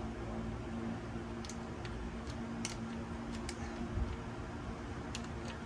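Light, scattered metallic clicks, about half a dozen, as a motorcycle shift linkage rod is turned and fitted by hand, over a steady low hum.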